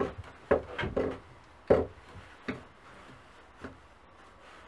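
Screwdriver prying the old wooden handle scale off a rusty hedge knife's tang: the wood cracks and scrapes as it splits away. A quick run of sharp cracks comes in the first two seconds, the loudest near the middle of that run, then a few more spaced out.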